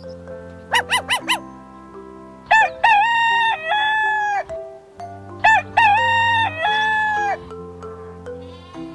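Rooster crowing twice, each a long held call, preceded by a few quick short clucks about a second in, over soft background music.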